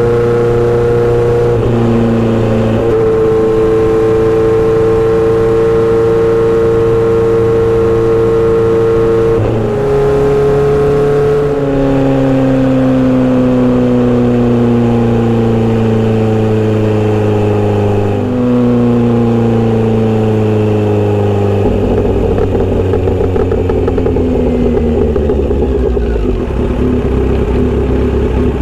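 Inline-four motorcycle engine and exhaust under way, holding a steady pitch for the first ten seconds or so. It then slows with downshifts: the pitch falls, jumps up at a shift about 18 s in, and falls again. A rougher, lower running sound takes over for the last several seconds.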